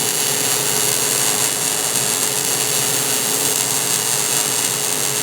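A power tool running steadily, with a loud, even hiss and one constant tone through it.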